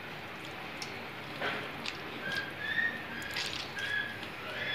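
Wet cheese curd squeezed and kneaded by hand in a pot of hot water, with a few short splashes and squelches. Several short high chirps sound in the background in the second half.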